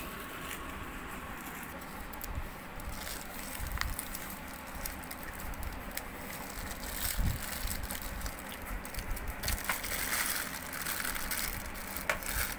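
Plastic bag and aluminium-foil food wrapper crinkling and rustling in the hands as takeaway food is unwrapped, with scattered sharp crackles, growing louder over the last few seconds.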